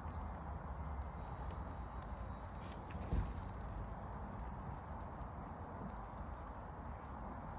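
Steady outdoor background noise, heaviest in the low end, with faint scattered high ticks and one short dull thump about three seconds in.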